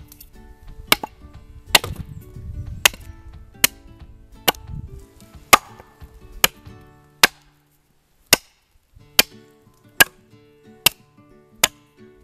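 Hatchet chopping a point onto a green sapling stake braced against a wooden stump: sharp chops about once a second, with a short pause about two-thirds of the way through.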